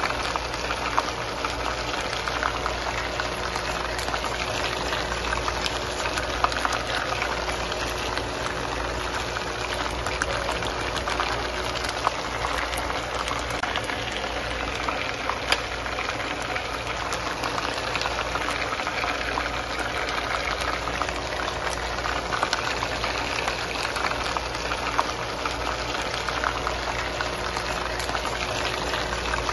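Chicken leg quarter sizzling in shallow oil in a skillet: a steady hiss full of constant small pops and crackles, with a few sharper clicks now and then.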